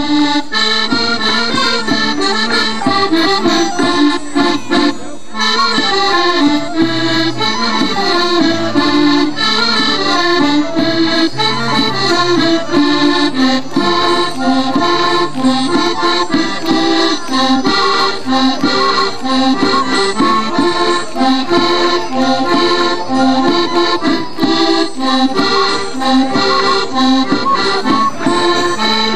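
Portuguese folk dance tune played by an accordion-led rancho band, with a steady beat.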